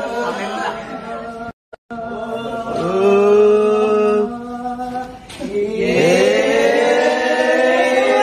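Voices singing without accompaniment, in long held notes that slide in pitch. The sound breaks off for a moment about one and a half seconds in, then resumes.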